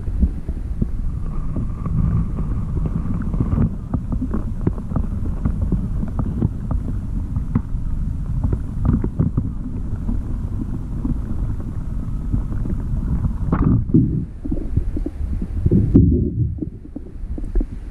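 Muffled underwater sound of water moving around a submerged camera: a steady low rumble with many small knocks and clicks.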